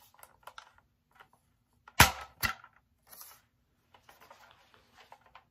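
Overhauled Air Warriors Tactical Storm foam blaster's mechanism clacking twice, about half a second apart, followed shortly by a brief puff of air as the held air is let out. This is an air-seal test on the hot-glued blaster. Light plastic clicks and handling noise come before and after.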